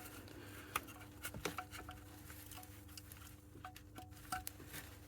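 Faint scattered clicks and small taps of hands working a plastic electrical connector and wiring in an engine bay: the cam sensor plug being refitted over a freshly soldered repair.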